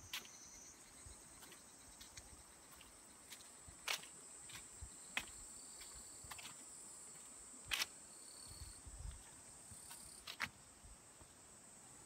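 Insects trilling in a steady, high-pitched drone, faint, with scattered sharp clicks, the loudest about four, eight and ten seconds in.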